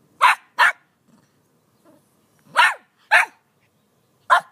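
Small white dog barking five short, sharp, high barks: two in quick succession, two more in the middle, and one near the end. It is barking to get the tennis ball lying at its paws thrown.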